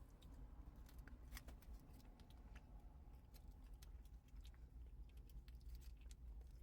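Faint chewing with small mouth clicks over a low, steady rumble.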